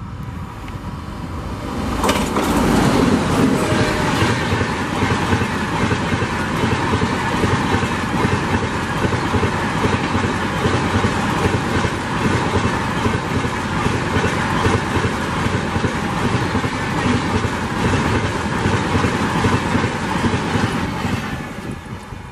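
Express train of LHB coaches hauled by a WAP7 electric locomotive passing close at speed. The noise jumps up about two seconds in as the locomotive goes by, then holds as a steady rush of wheels on rail with a rhythmic clatter, and fades near the end as the train recedes.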